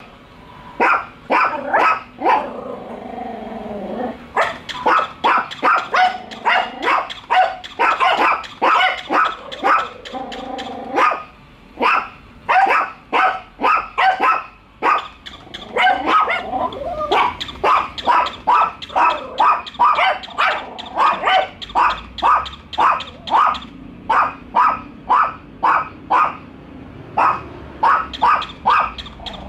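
A Chihuahua and a Yorkshire Terrier barking rapidly and almost without pause, wary barking at an unfamiliar walking toy dog.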